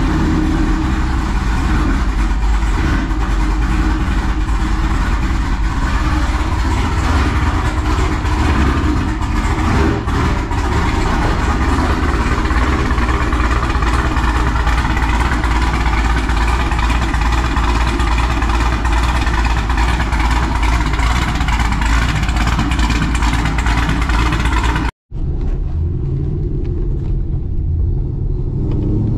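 Cammed LS3 V8 of a 2011 Camaro SS, with long-tube headers and Corsa exhaust, idling steadily just after being started. About 25 s in there is a brief cut, after which the engine is heard more muffled from inside the cabin.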